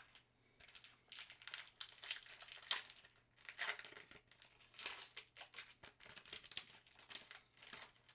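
Foil wrapper of a trading card pack crinkling and tearing as it is opened, an irregular run of crackles.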